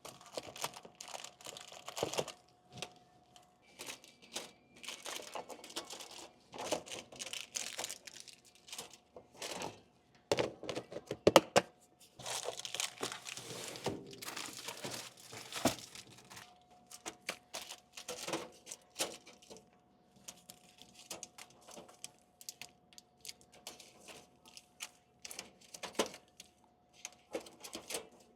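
Crinkly plastic snack packets being handled and loaded into a vending machine, with irregular rustling and sharp clicks and knocks, loudest about halfway through. A faint steady hum runs underneath.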